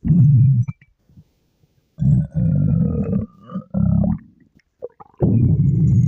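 A girl's stomach growling and gurgling in four loud bursts with short silences between. The second burst carries a squeaky whine that slides slightly down in pitch.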